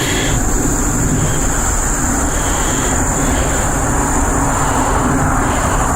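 Steady high-pitched insect drone over a loud, even low rumbling noise, with no distinct knocks or breaks.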